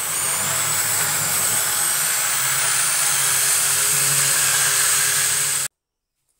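Stainless-steel immersion (stick) blender running steadily while puréeing a cooked sauce in a plastic beaker: a loud whirring motor with a high whine, cutting off suddenly about five and a half seconds in.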